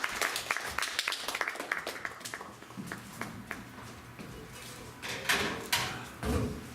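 Audience applauding, the clapping thinning out and dying away over the first two or three seconds, followed by a few scattered thumps near the end.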